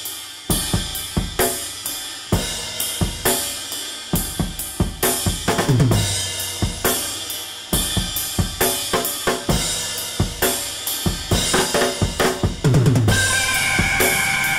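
Music track driven by a drum kit: steady kick, snare and cymbal hits with deep falling drum thuds, and a held tone coming in near the end.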